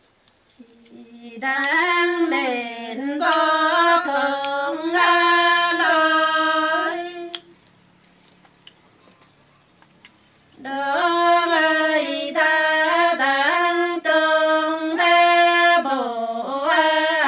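A woman singing unaccompanied in the Nùng call-and-response style (hát đối đáp): two long, drawn-out phrases with held, gliding notes and a pause of about three seconds between them.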